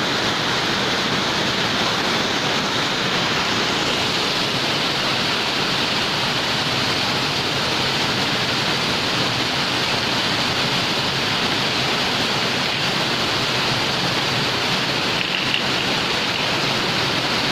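Heavy rain with water pouring into a flooding building floor: a loud, steady, unbroken rush of water.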